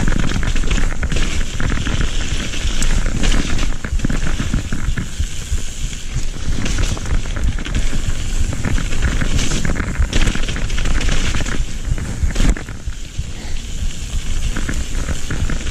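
Mountain bike riding fast down a dirt singletrack: tyres crunching over dirt and grit, with frequent knocks and rattles from the bike over bumps, under a steady rush of wind on the microphone.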